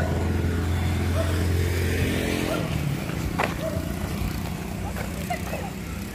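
A motorcycle engine running as it passes close by on the road, fading out about two and a half seconds in. A sharp click follows about a second later.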